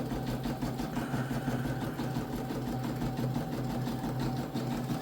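Home embroidery machine running, its needle stitching in a rapid, even patter over a steady motor hum.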